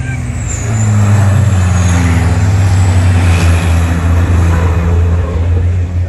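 Racing trucks' turbocharged diesel engines running hard as the trucks go by. The sound swells about a second in and then holds loud and steady.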